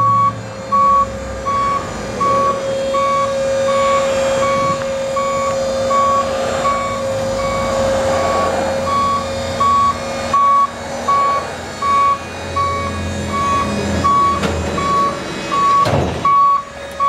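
Scorpion truck-mounted crash attenuator being hydraulically raised to its stowed upright position: a warning beeper repeats evenly, under a second apart, over the steady whine of the hydraulic power unit. A single knock sounds near the end as the cushion seats in its cradles.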